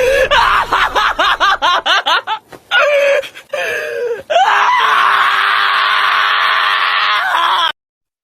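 A shrill voice: rapid rising cries, about five a second, then a few longer calls and a long held scream that cuts off suddenly near the end.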